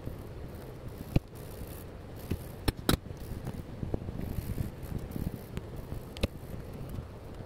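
Pencil scratching and shading on sketchbook paper over a low rumble of handling noise. A few sharp clicks stand out: one about a second in, two close together near the three-second mark (the loudest), and one about six seconds in.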